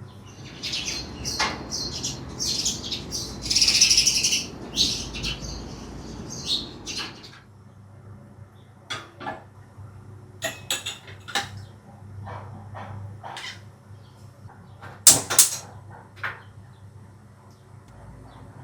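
Kitchenware handled while making tea: a rushing noise with clatter for about the first seven seconds, then scattered clinks and taps, the loudest pair about three seconds before the end.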